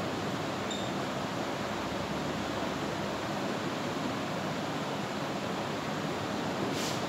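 Steady, even hiss of background room noise with a faint low hum, and one brief high squeak about a second in.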